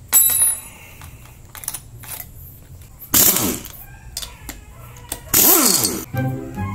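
Metal tool work on a motorcycle cylinder head: a sharp metallic clink as the power tool is lifted out, then two loud short sounds that fall in pitch, about three and five and a half seconds in.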